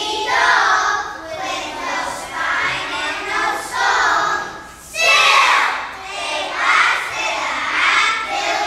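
A choir of young first-grade children singing a song together in phrases, with the loudest phrase about five seconds in.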